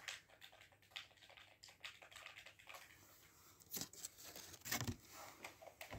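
Faint, scattered clicking and tapping from a handheld game controller's buttons and sticks being worked, with two slightly louder taps about four and five seconds in.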